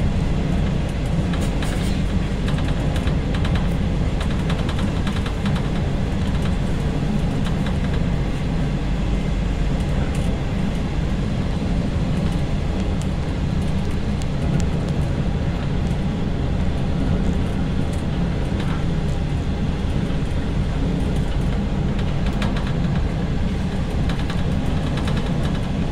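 Passenger train running through a long rail tunnel, heard inside the rear carriage: a steady low rumble of wheels on rail, with faint clicks and rattles over it.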